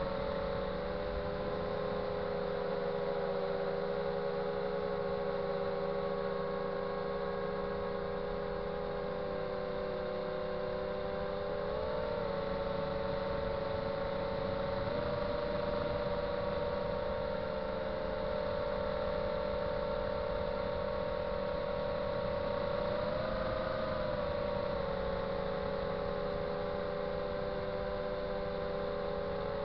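FPV drone's electric motors and propellers whining steadily in flight, several close tones moving together. The pitch rises briefly with the throttle about twelve seconds in and again near twenty-three seconds.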